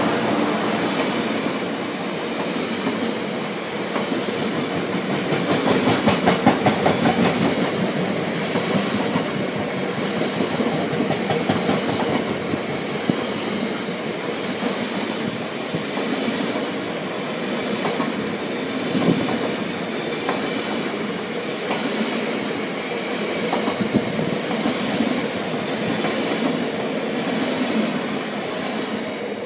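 A long rake of Freightliner Heavy Haul coal hopper wagons rolling past: a steady rumble of steel wheels on rail with repeated clacks over the rail joints, loudest about six seconds in.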